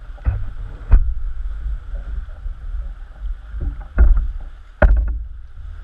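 Choppy sea water sloshing and slapping against a fishing kayak's hull, with about four sudden heavy low thumps, the loudest about a second in and just before five seconds.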